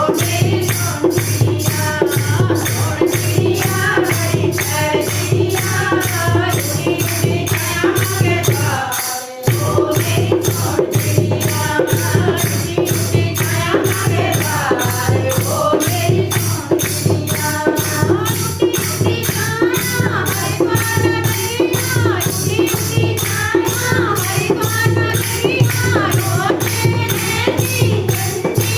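Devotional bhajan sung by a kirtan group, with jingling percussion keeping a steady beat of about three strokes a second over a sustained low accompaniment. The music drops out for a moment about nine seconds in.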